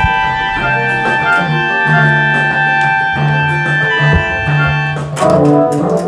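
Keyboard music: held organ-like chords over a stepping bass line, turning fuller and brighter about five seconds in.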